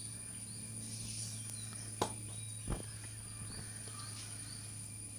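Quiet background: a steady low hum with faint high chirps, and two soft taps a little after two seconds in.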